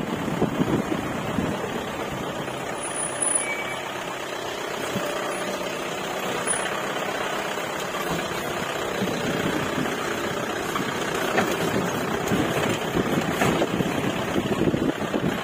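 Jeep engine running as the vehicle drives along, with a steady rushing noise over it that gets rougher and more uneven in the last few seconds.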